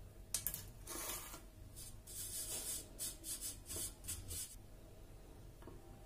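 Flour and baking powder being sifted through a round metal sieve: a sharp tap just after the start, then a run of brushy, rasping shaking strokes that stop about a second and a half before the end.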